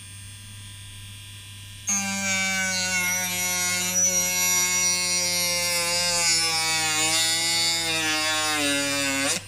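Electric mini rotary drill-grinder cutting into material: a loud, many-toned whine starts suddenly about two seconds in. Its pitch sinks slowly as the tool works under load, then it drops and cuts off abruptly near the end.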